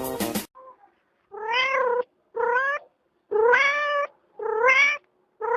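Background music cuts off about half a second in, then a domestic cat meows repeatedly, about once a second: four calls of about half a second each, and a fifth beginning near the end, each rising a little in pitch at its start.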